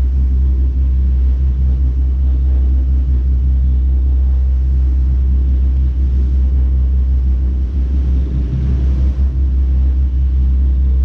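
A sportfishing boat's engines running steadily under way: a continuous low drone with the rush of churning wake water along the hull.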